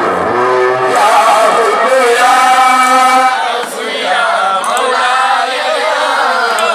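Group of men chanting together into microphones, their voices amplified, with long held notes and a brief break about three and a half seconds in.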